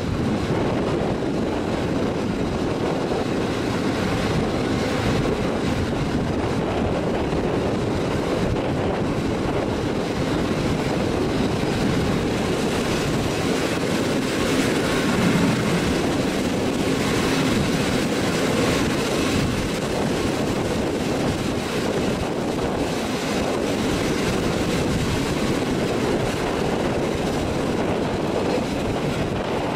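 Passenger train running on the rails, heard from an open carriage window: a steady rumble of wheels and carriages, a little louder around the middle.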